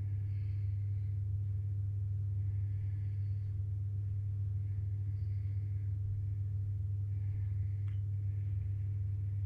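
Steady low electrical hum, with faint soft rustles recurring about every two seconds.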